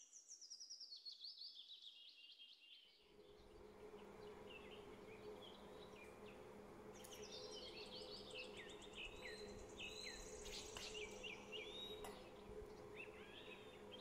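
Faint birds chirping with short, quick calls. A steady low hum comes in about three seconds in and continues beneath them.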